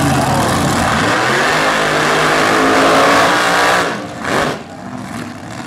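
Front-engine dragster's engine revving hard during a burnout, its pitch climbing for a couple of seconds before it cuts off abruptly; one short blip of throttle follows, then a much lower engine sound.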